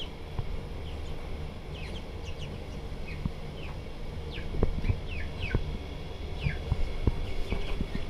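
Young aseel chickens peeping: many short, high, falling cheeps scattered throughout, over a steady low rumble, with a few sharp knocks in the second half.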